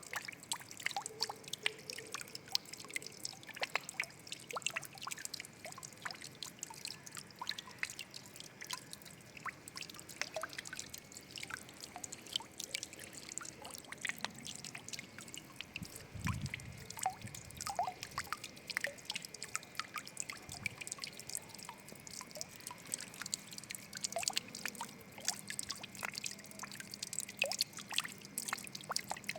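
Water trickling and dripping: a continuous, irregular patter of small drips and splashes, with a brief low rumble about halfway through.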